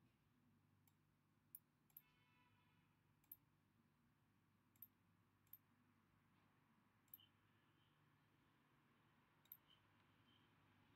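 Faint computer mouse button clicks, about seven of them at irregular intervals, over near-silent room tone.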